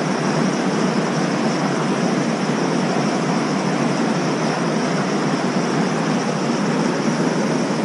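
Steady rushing of a fast-flowing trout stream, an even hiss of water with no distinct events.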